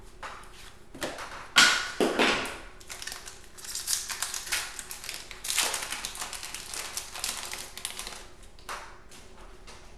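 Foil wrapper of a hockey card pack crinkling and tearing as the pack is opened. There are two sharp rips about one and a half and two seconds in, then a long stretch of crinkling.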